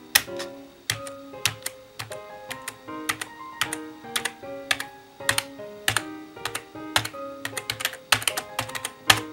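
Typing on a PICTEK PC245A semi-mechanical (membrane) gaming keyboard: quick, irregular key clacks, several a second, over background music.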